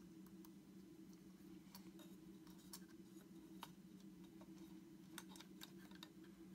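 Faint small ticks and clicks of tiny hex screws being handled and started by hand into a B4 camera lens mount, scattered irregularly, over a steady low hum.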